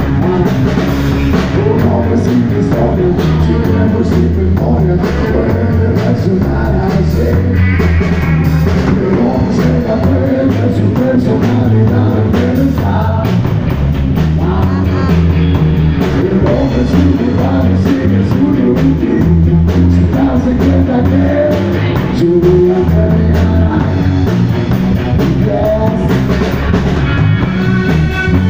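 Live rock band playing loud: electric guitar, bass guitar and drum kit, with a voice singing.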